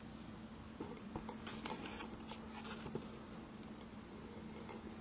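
Faint scattered rustling and ticking of wild boars moving and rooting in dry leaf litter and soil, busiest between about one and three seconds in.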